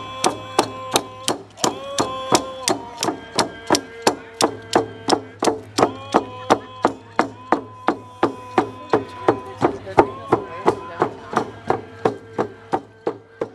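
Native American rawhide hand drums beaten in a steady beat, about three strokes a second, with a group singing held notes in short phrases over them. The drumming and singing fade out near the end.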